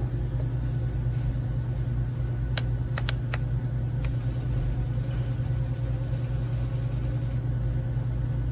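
A steady low mechanical hum, with a few light clicks about three seconds in.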